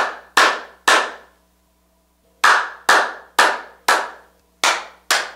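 Loud hand claps in a slow, even beat, about two a second, each trailing off in a ringing echo, with a pause of about a second after the first three.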